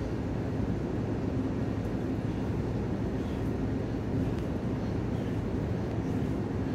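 Steady mechanical drone: an even low rumble with a constant hum, unchanging throughout.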